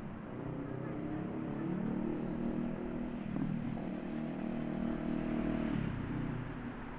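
Street traffic with one vehicle engine running close by, its pitch climbing a little about two seconds in and holding steady before dropping away near the six-second mark.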